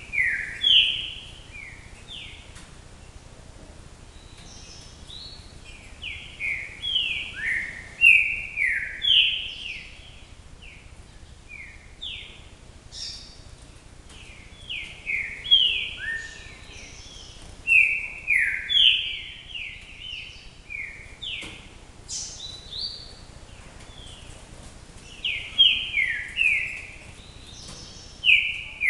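A songbird singing in repeated phrases of short, clear notes that each slide downward in pitch, a new phrase every few seconds.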